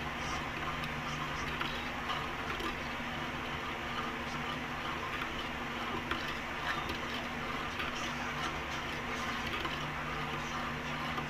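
Thin plastic ice candy bags crinkling with small scattered ticks as they are twisted and knotted shut, over a steady background hum.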